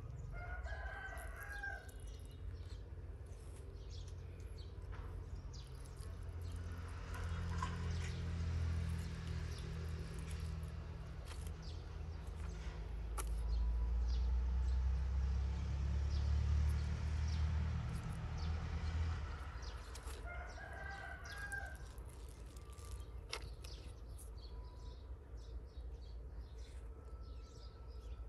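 A rooster crowing twice, once about a second in and again about twenty seconds in. Between the crows a low rumble swells and fades, and it is the loudest sound, with faint scattered clicks throughout.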